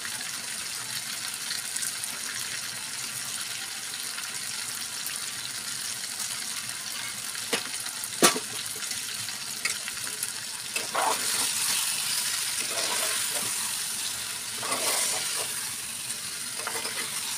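Chicken masala with potatoes sizzling steadily in a pan on a gas stove, with two sharp knocks about eight seconds in. From about eleven seconds a spatula stirs and scrapes through the pan, louder and uneven.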